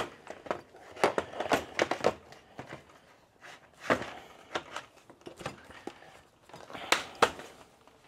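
Rad Power Bikes e-bike battery pack being slid back into its frame mount: scattered plastic clicks, knocks and scrapes, with sharper knocks near the start and again about seven seconds in.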